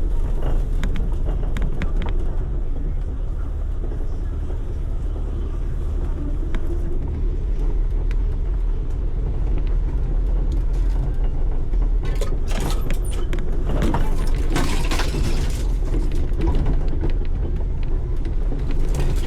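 Off-road vehicle driving along a rough trail: a steady low rumble of engine and drivetrain, with a run of sharp knocks and rattles from about twelve seconds in that die away about five seconds later.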